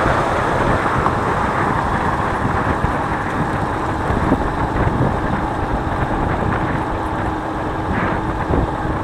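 Motorcycle cruising steadily on a highway: an even, unchanging rush of engine, wind and road noise.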